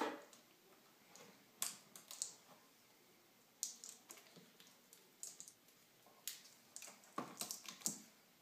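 Faint, irregular clicks and rustles of hands handling parts inside an opened iMac while pulling the temperature sensor off the hard drive. The clicks are busiest near the end.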